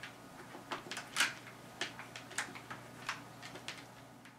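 Kittens batting at a plastic ball-track cat toy: irregular light clicks and clatters, the loudest a little over a second in.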